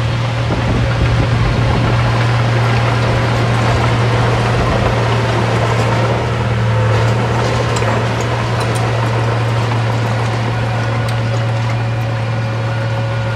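Diesel engine of heavy earthmoving machinery running steadily: a strong, steady low hum under a broad rushing noise.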